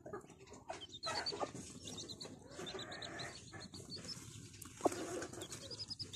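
Chicks peeping in quick runs of short, high notes as they tuck under a brooding hen, with an occasional low cluck from the hen.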